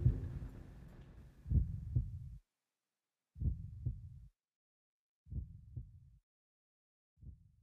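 Low double thumps in a heartbeat rhythm, about one pair every two seconds, growing fainter with each pair and fading out.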